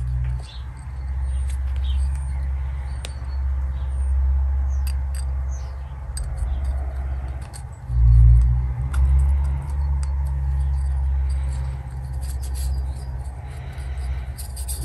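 Small clicks and scrapes of a piston compression ring being sprung by hand into its groove on a 250cc quad piston, over a steady low rumble on the microphone that swells briefly about eight seconds in.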